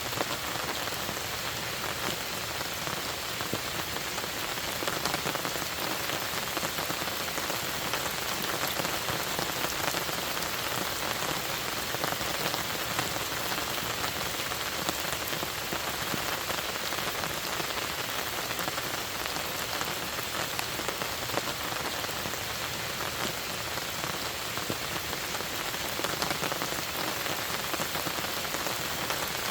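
Steady rain falling, a dense even patter of many small drops, with no letup or change.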